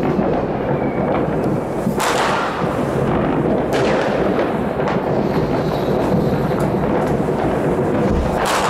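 New Year's fireworks and firecrackers going off all over the city: a dense, continuous crackle and rumble of distant bangs, with two sharper, louder bangs about two seconds in and near the end.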